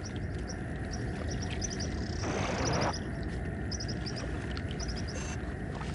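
Natural outdoor ambience: a steady low rumbling bed with short high chirps from small animals, coming in little clusters every second or so, and a brief rustling rasp a little over two seconds in.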